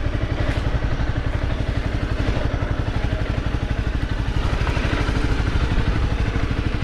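Motorcycle engine running steadily at low revs, an even rapid pulsing with no change in speed.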